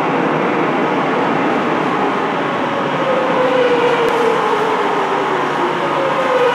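Madrid Metro Serie 8400 electric train pulling into an underground station: a loud, steady rumble of wheels and running gear, with a whine that falls in pitch from about halfway as the train slows.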